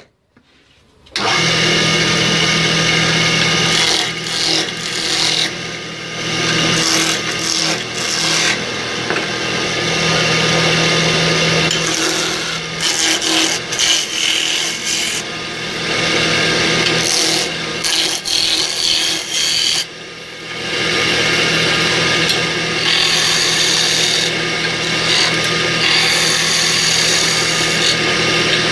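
Wood lathe starting about a second in and spinning a square wooden blank while a hand-held gouge roughs it down to a cylinder: a steady motor hum under loud scraping cutting noise that rises and falls as the tool bites. The cutting drops away briefly about two-thirds of the way through, then resumes.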